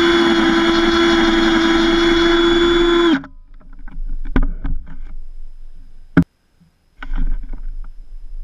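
Cordless drill motor running at a steady pitch while drilling a hole in a pine board, loud because the drill carries the camera; it stops sharply about three seconds in. Then knocks and rattles of the drill being handled while the drill bit is swapped for a driver bit, with a sharp click about six seconds in.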